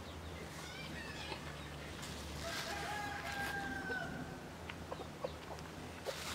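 A rooster crowing in the coop: one long drawn-out crow about two and a half seconds in, lasting over a second, with short chirping calls before it and more calls near the end, over a low steady hum.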